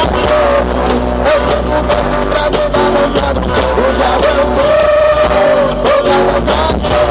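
Loud live stage music with a steady beat and a held lead melody that bends in pitch.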